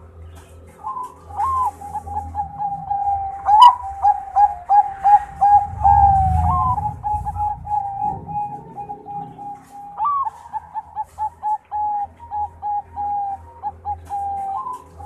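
Zebra dove of the Thai-bred 'Bangkok' perkutut type singing: a long, quick run of short cooing notes that starts about a second in, with a few rising flourishes along the way. A single sharp click stands out about a third of the way in.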